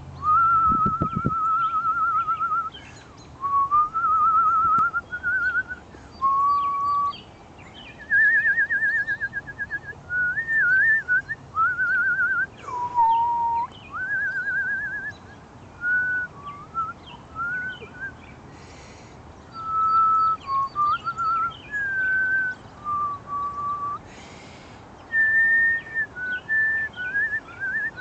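A person whistling a tune in phrases of warbling trills and short slides, with small birds chirping faintly behind.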